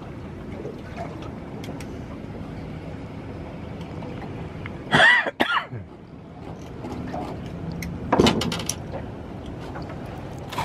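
A man clearing his throat, a loud throaty sound about five seconds in and again about eight seconds in, over a steady low rumble.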